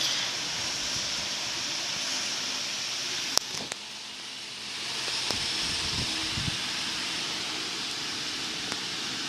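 Steady hissing background noise with a few sharp clicks, the loudest about three and a half seconds in.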